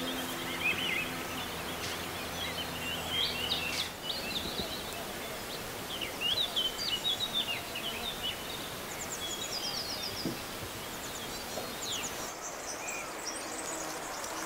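Several small birds chirping and trilling, busiest in the middle. Bees buzz steadily under them until about four seconds in, when the buzz stops.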